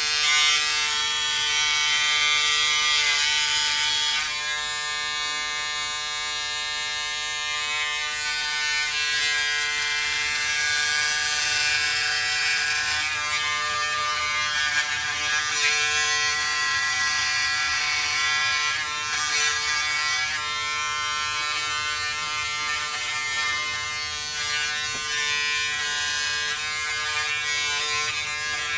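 Braun Series 7 360 Flex electric foil shaver running steadily against the skin, cutting stubble along the jaw and neck. A steady motor hum carries a high rasp that swells and fades as the head moves.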